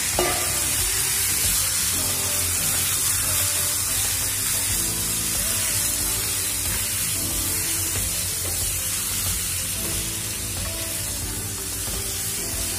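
Marinated chicken pieces sizzling in hot oil in a non-stick kadai while a wooden spatula stirs them. Background music plays throughout.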